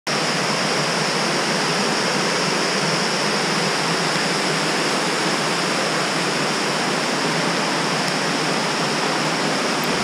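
Water rushing steadily down a small rocky cascade, a constant even roar of falling water.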